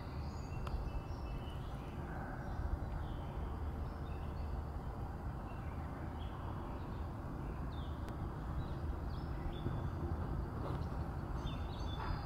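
Outdoor river-edge ambience: a steady low rumble with scattered short bird chirps and calls.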